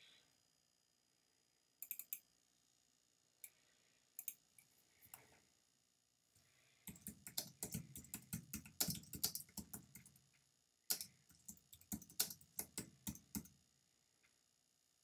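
Typing on a computer keyboard in two quick runs of keystrokes, after a few separate clicks.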